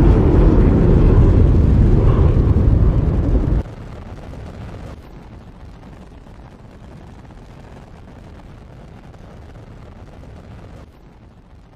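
Loud, deep rumble of the Space Shuttle's rocket exhaust, picked up by a camera riding on the launch stack. It cuts off suddenly about three and a half seconds in, leaving only a faint steady hiss.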